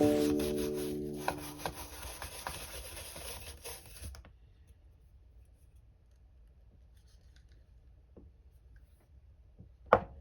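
Background music with a held chord, fading out over the first four seconds or so. Then faint small clicks and scrapes, with one sharper click near the end.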